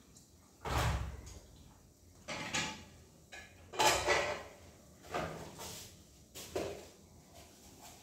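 Kitchen things being handled on a countertop: pots, a basin and utensils knocked and set down in about five separate clunks and clatters.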